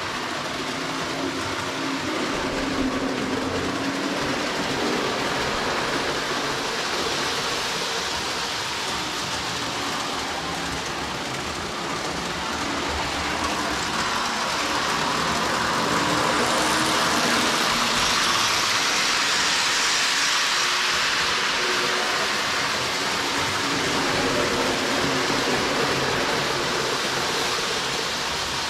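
Lionel O-gauge toy train running on track: a steady running rumble of motor and wheels that grows louder for a few seconds past the middle, as it comes nearest, then eases off.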